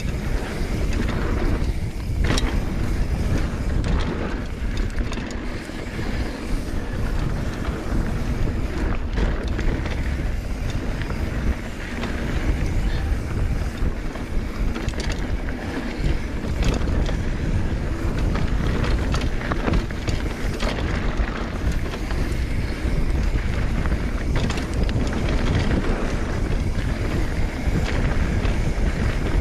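Mountain bike descending dirt singletrack at speed: wind buffeting the camera microphone over the rumble of the tyres, with frequent short clicks and rattles from the bike as it rolls over bumps.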